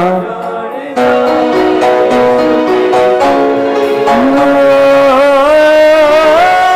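Instrumental break in a live Punjabi worship song: a melody stepping through held notes over band accompaniment, which comes in fully about a second in.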